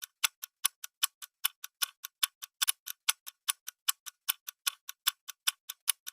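Countdown timer sound effect: a clock-like ticking, evenly at about five ticks a second.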